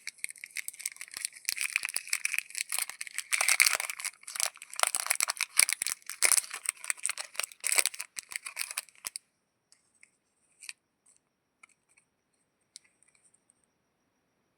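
Chocolate bar wrapper being torn open and crinkled: a dense run of crackling and tearing for about nine seconds, then a few scattered small rustles near the end.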